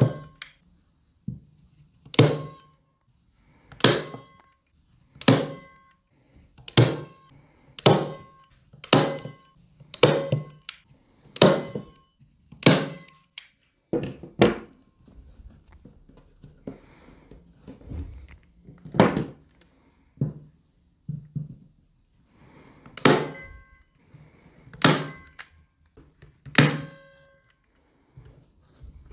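Manual staple gun driving staples through canvas into a wooden stretcher frame: a sharp metallic snap with a brief spring ring on each shot. About a dozen shots come in quick succession, roughly one every second or so, then after a pause a few more, spaced wider apart. This is the canvas being re-tensioned and stapled down along the frame.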